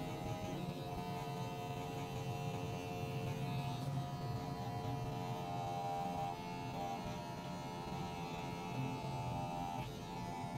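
Electric hair clipper running with a steady buzz as it cuts hair at the nape.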